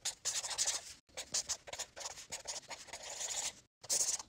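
Handwriting sound effect: a pen scratching across a surface in a series of quick strokes. There is a short break about a second in and a last stroke near the end.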